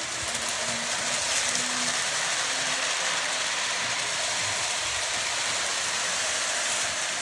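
Model train running along its track: a steady rattle of wheels on rails, with a faint tune of a few notes in the first few seconds.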